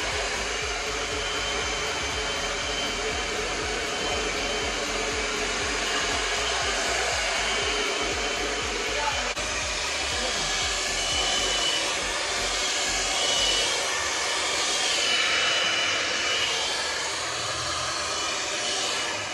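Hand-held hair dryer blowing steadily on wet hair: a continuous rush of air with a faint steady whine, briefly dipping about nine seconds in before running on.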